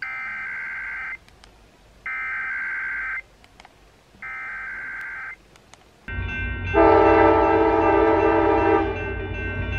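Emergency Alert System SAME header: three bursts of rapid two-pitch digital data tones, each about a second long with a second's gap between them, marking the start of a Required Monthly Test. About six seconds in, a steady tone made of several pitches begins and is loudest for about two seconds.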